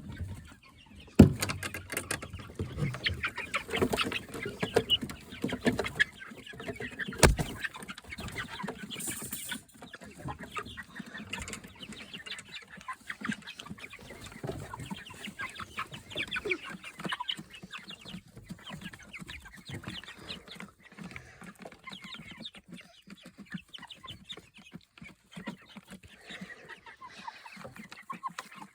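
Chickens clucking continuously at close range, with two sharp knocks, the loudest about a second in and another about seven seconds in.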